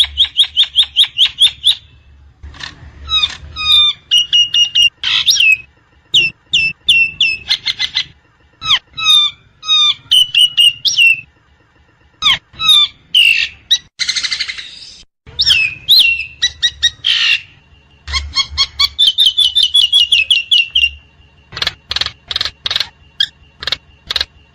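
Common myna (jalak nias) calling: quick runs of repeated chattering and whistled notes, rippling trills and clicks, broken by short pauses. A harsh screech about 14 seconds in.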